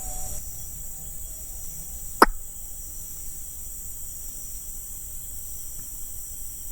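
Steady high-pitched chorus of insects, with a single sharp click about two seconds in.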